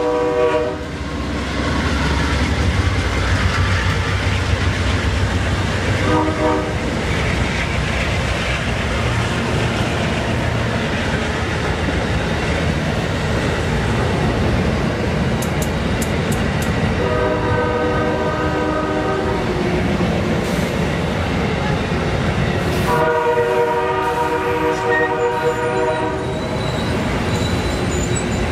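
Amtrak passenger train passing close by: a steady rumble and rattle of steel wheels on rail as the P42DC locomotives and then the passenger cars roll past. The train horn sounds over it several times: one blast fading as the sound opens, a short one about six seconds in, and two longer blasts about 17 and 23 seconds in.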